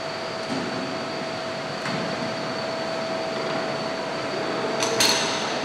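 Steady ventilation hum of a cleanroom, with two steady whining tones and a few sharp knocks of hardware being handled, the loudest about five seconds in.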